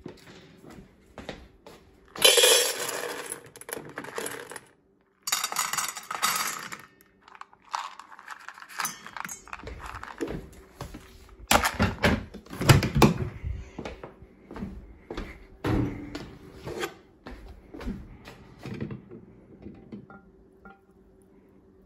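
Dry dog kibble poured from a plastic container into stainless steel bowls, rattling in two long pours, followed by scattered clinks and knocks of the metal bowls and container.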